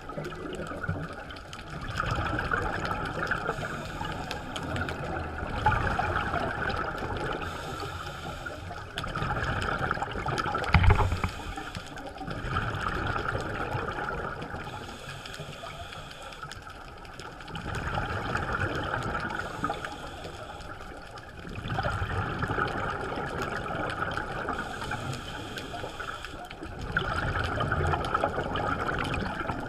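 Underwater sound of a diver breathing through a scuba regulator: a rhythmic cycle of breaths and gurgling exhaled bubbles swelling every three to five seconds, with a sharp knock about eleven seconds in.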